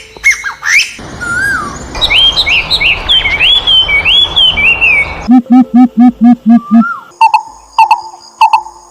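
A run of varied bird calls: quick rising chirps, then a string of upward-sweeping whistled notes over a steady hiss, then six evenly spaced pulsed notes, and sharp clicking calls near the end.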